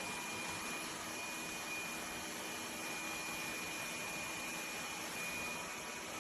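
Lefant M1 robot vacuum running: a steady whir with a thin, high-pitched whine held throughout.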